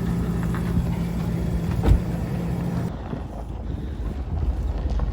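A steady low mechanical hum, like a vehicle engine running, with one sharp knock about two seconds in. The sound changes abruptly a little after the middle, the hiss dropping away and leaving a rougher low rumble.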